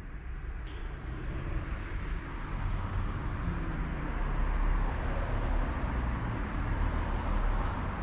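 Road traffic: a motor vehicle approaching, its tyre and engine noise growing steadily louder.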